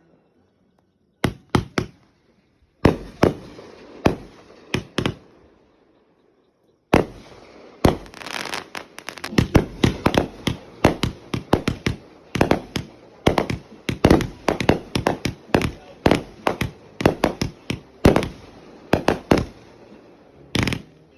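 Fireworks going off in sharp bangs: a few scattered reports at first, then from about seven seconds in a rapid, crackling run of many bangs, several a second.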